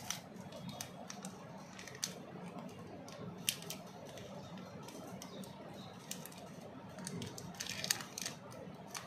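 Chocolate wrappers and packaging being handled: scattered light clicks and short crinkles, with a longer patch of crinkling near the end.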